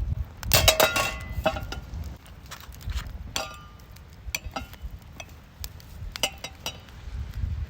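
Hard items, metal or glass camping gear, being handled: a run of light clinks and clatters with short ringing tones, busiest about half a second to a second in and again around six seconds. A low rumble of wind on the microphone lies underneath.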